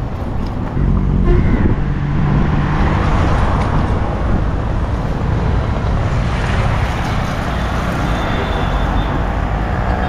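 Road traffic: vehicle engines and tyres passing on a busy road, loudest about a second in.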